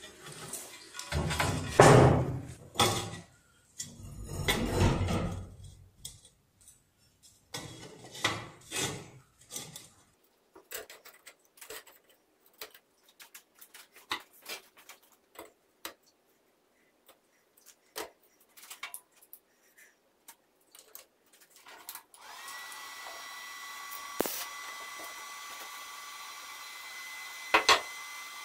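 A steel plate scraping and knocking on a steel workbench top several times in the first ten seconds, then scattered small metal clicks. About two-thirds of the way in, a steady electrical hum with a high whine starts and keeps on.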